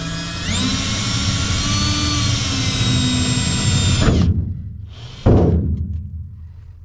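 Electric hand drill boring a pilot hole, its motor whine stepping up in pitch about half a second in, holding steady, then winding down about four seconds in. A brief loud burst follows about a second later.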